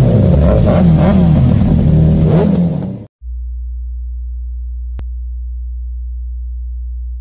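Loud electronic intro sound effect with sweeping pitch glides that cuts off sharply about three seconds in, followed by a steady low sine-wave hum with a single sharp click partway through.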